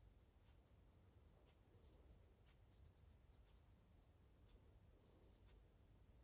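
Near silence: room tone with faint scattered ticks.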